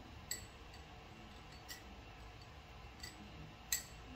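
Metal tweezers clicking against a small glass dish of water as a decal is fished out: four or five light, sharp clicks, the loudest shortly before the end.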